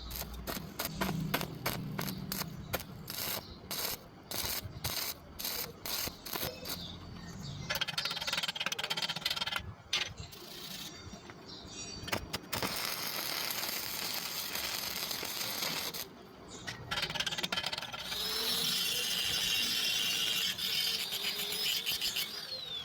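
Electric arc welding on thin angle iron: the arc crackles in quick short bursts for the first several seconds, then runs in longer steady hissing stretches broken by brief stops.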